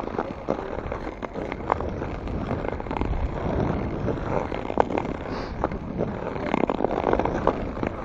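Ice skate blades scraping and gliding over natural lake ice in irregular strokes, with wind buffeting the microphone.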